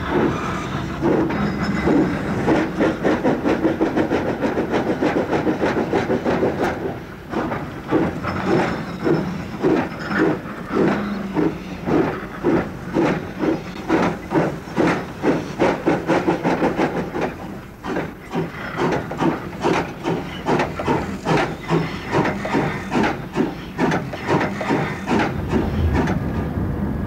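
Steam locomotive working hard, its exhaust beats coming in a steady run of chuffs about two a second. The beats drop away briefly about two-thirds of the way through, then pick up again.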